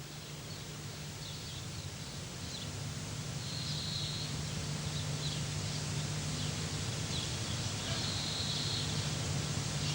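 Outdoor ambience: a steady hiss that slowly grows louder, under a low steady hum, with a few brief high chirps from birds, two of them longer, near the middle and near the end.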